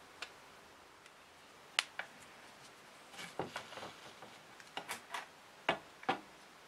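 Light clicks and taps from hands handling a twisted hemp bowstring and a yew longbow's leather grip on a hard tabletop. Sharp single clicks come about two seconds in and twice near the end, with a loose cluster of small taps and rustles around the middle.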